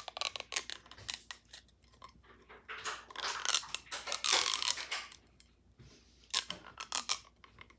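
Homemade bendy-straw pop tube being stretched and worked, the ribbed plastic straw joints crackling in rapid clicks, with a denser run of crunching midway.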